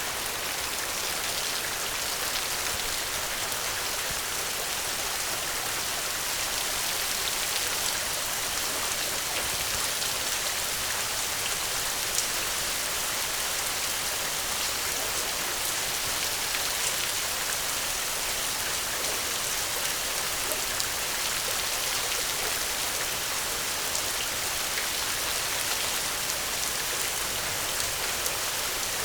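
Steady heavy rain, a dense even hiss with scattered small ticks of drops.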